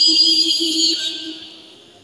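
A woman's melodic Qur'anic recitation, her voice holding one long steady note into the microphone. The note fades away over the second half.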